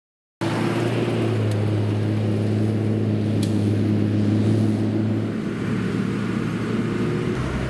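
Pickup truck with a slide-in camper driving on a dirt road: a steady low engine drone with tyre and road noise, starting abruptly. About five seconds in it cuts to the quieter engine and road noise heard inside the truck's cab.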